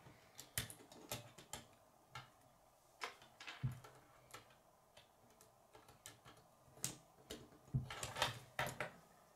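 Plastic K'nex rods and connectors clicking and snapping together as a model is assembled by hand, with light knocks of the pieces on a wooden table. The clicks are scattered and irregular, busiest around three seconds in and again near the end.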